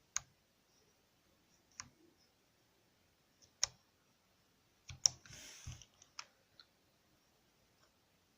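Individual keystrokes on Topre electrostatic capacitive keyboard switches, each a short sharp click, a second or two apart with a quicker cluster of presses about five seconds in.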